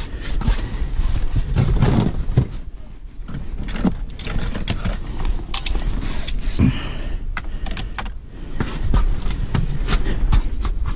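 Gusty wind rumbling steadily on the microphone, with clattering and rattling as gear is rummaged through in a plastic sled, many short sharp knocks as items are shifted and a thermos is lifted out.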